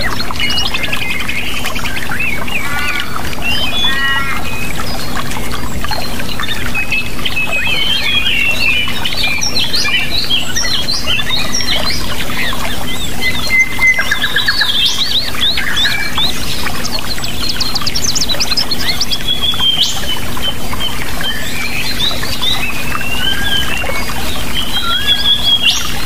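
Many songbirds chirping and trilling over steady rushing water, with a low steady hum underneath. The overlapping calls come in quick runs throughout.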